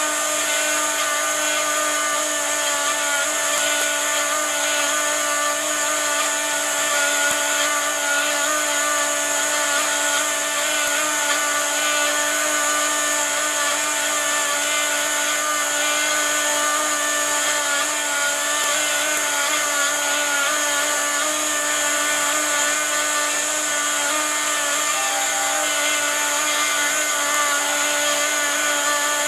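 CNC router spindle running steadily at about 18,000 rpm, a constant high whine, carving wood.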